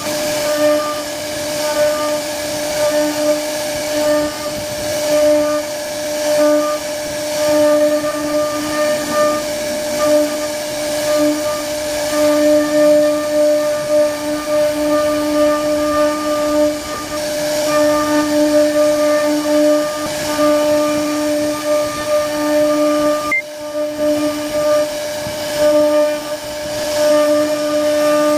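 CNC router spindle running with a steady high-pitched whine over a hiss as its bit carves a relief pattern into a wooden door panel. The sound briefly drops away about three-quarters of the way through, then picks up again.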